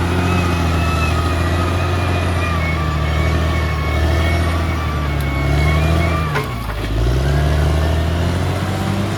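Bulldozer's diesel engine running steadily under load, with a thin whine above it. About six seconds in there is a sharp clank, and the engine pitch dips briefly as it lugs down, then comes back up.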